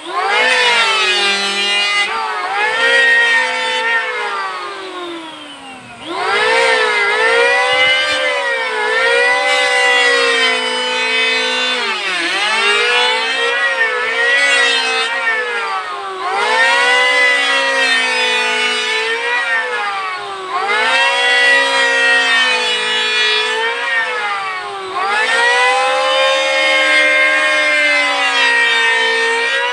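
Electric wood planer running under load, its motor whine rising and sagging in pitch every four to five seconds as the blades bite into the board on each pass. It briefly drops lower and quieter about five seconds in.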